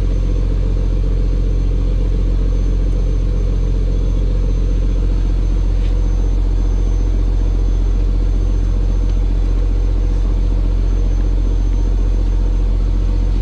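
Fishing trawler's inboard diesel engine running steadily: an even, low drone with no change in speed.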